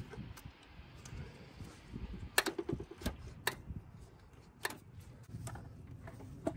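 Scattered light clicks and knocks of parts being handled and refitted on a Jeep engine's throttle body as the air intake tube goes back on, a few sharper clicks between about two and five seconds in.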